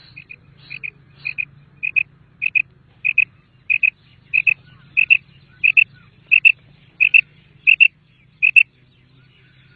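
Common quail calling: a steady series of short, high double notes, about three pairs every two seconds, growing louder through the call series.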